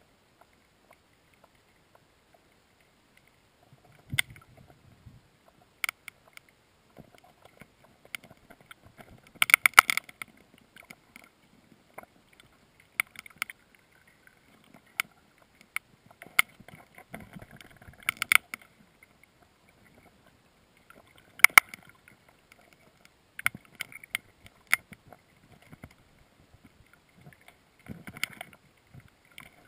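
Irregular knocks, clicks and bumps heard through a GoPro's waterproof housing lying under lake ice, muffled as it is underwater. Almost nothing for the first few seconds, then scattered knocks, with the loudest ones about a third of the way in and again past the middle.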